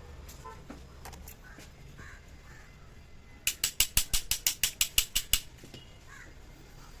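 Hand ratchet wrench clicking in a quick even run, about a dozen clicks in two seconds, near the middle.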